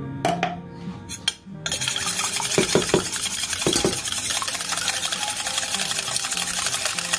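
Wire whisk beating an egg white in a stainless steel bowl: a few clicks, then from about a second and a half in a fast, continuous scraping and ticking of the wires against the metal.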